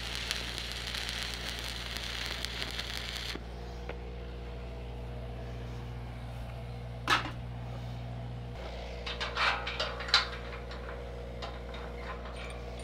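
Stick-welding arc of a 7018 electrode crackling and sizzling, cut off about three and a half seconds in. Under it a Lincoln engine-driven welder runs steadily, its hum changing about eight and a half seconds in, with a sharp metallic clank near seven seconds and a few quick metallic clinks around nine to ten seconds.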